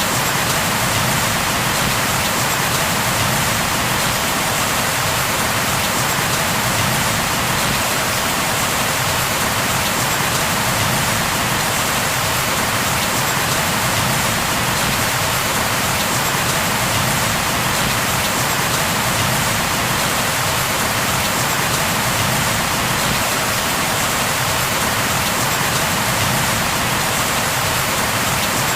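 Steady rain falling and pattering on a surface: a dense, even hiss that does not change.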